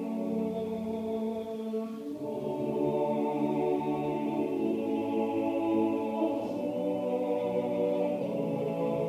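Male choir singing Orthodox liturgical chant a cappella, holding long sustained chords, with the harmony shifting about two seconds in and again near the end.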